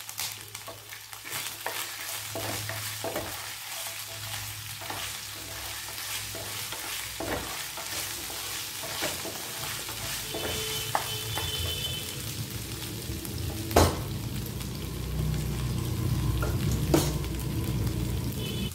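Cumin seeds and chopped ginger sizzling in hot oil in a nonstick frying pan, stirred with a wooden spatula, with scattered sharp knocks. One knock about fourteen seconds in is the loudest.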